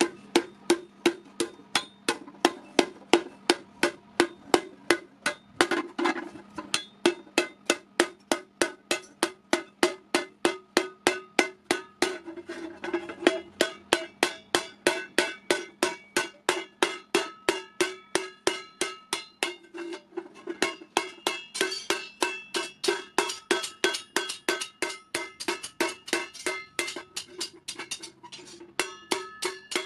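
Hand hammer beating a dished iron thali plate into shape, steady blows about three a second, the thin iron ringing like a bell after each strike.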